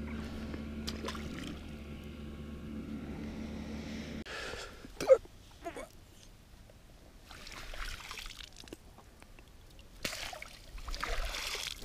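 Footsteps on wet sand and mud along a riverbank, with water splashing and trickling, under a faint low hum that stops about four seconds in. A short sharp sound about five seconds in is the loudest moment.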